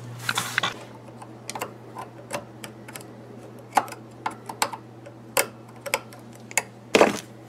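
Sharp metal clicks and taps at irregular intervals as needle-nose pliers work C-clips back onto a Honda Rancher 420 clutch held in a vise, the loudest click near the end.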